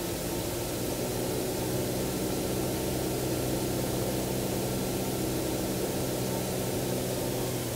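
Cessna 172N's four-cylinder piston engine and propeller heard from inside the cockpit: a steady drone over rushing air noise on short final. Near the end the engine note drops away as power comes off over the runway.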